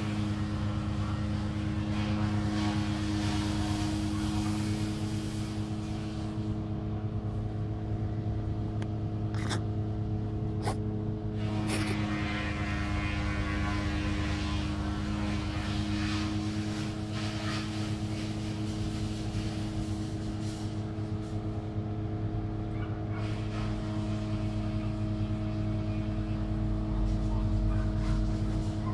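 Domestic cat purring steadily and close up while being stroked, with a few brief clicks around the middle.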